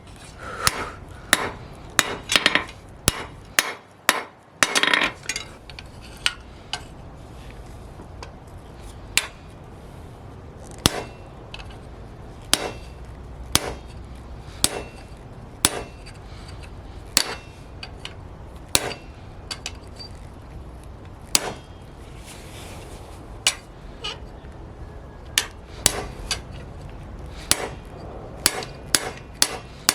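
Hand hammer striking steel bar stock on an anvil while forging: separate blows at an irregular pace, with a few quick runs of strikes in the first five seconds.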